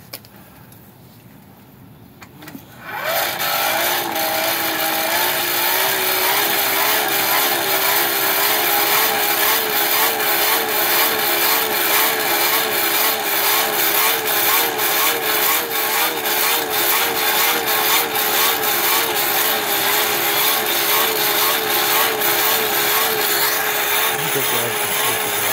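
A small electric motor starts about three seconds in, its hum rising in pitch as it spins up, then runs steadily with a wavering hum and hiss until it cuts off near the end.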